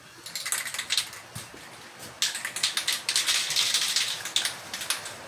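Aerosol spray paint can being shaken, its mixing ball rattling in quick clicks: a few scattered rattles first, then a fast steady run of shaking from about two seconds in.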